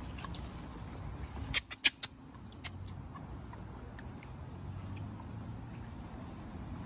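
Rhesus macaques squeaking: a quick run of four short, high-pitched squeaks about a second and a half in, two more about a second later, and a faint falling squeak near five seconds in.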